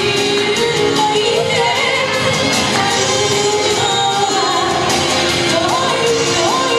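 A song playing: a sung vocal melody over full instrumental backing.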